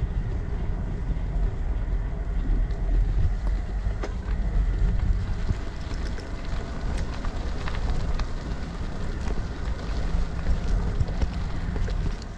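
Wind buffeting a GoPro action camera's microphone while cycling, over the crunch of bicycle tyres on a gravel path, with scattered small clicks and rattles from the bike.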